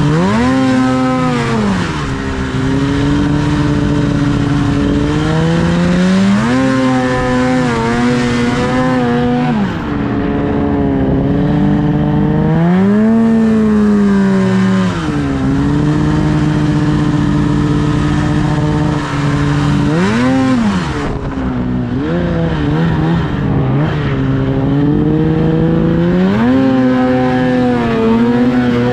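Ski-Doo snowmobile engine under way, revving up and settling back about five times, holding a steady pitch between the surges.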